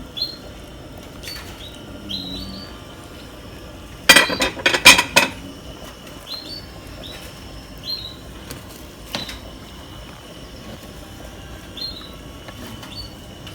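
A metal utensil clinking and knocking against a cooking pot in a quick burst of several strikes about four seconds in, with one more single knock later.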